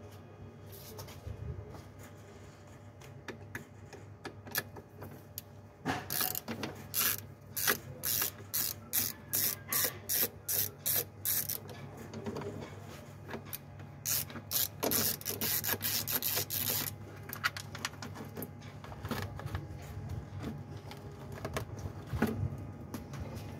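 Ratcheting mechanical clicks in quick repeated strokes, about two a second, in two runs through the middle with a short pause between, over a steady low hum.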